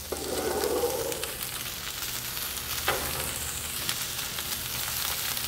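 Prosciutto-wrapped asparagus sizzling steadily on a preheated flat cast iron pan in a pizza oven, with one faint tick about three seconds in.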